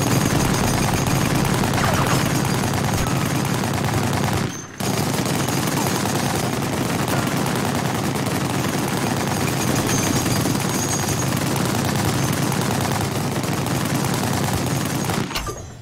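M2 Browning .50-calibre heavy machine gun firing long sustained bursts, with one short pause about four and a half seconds in, stopping shortly before the end.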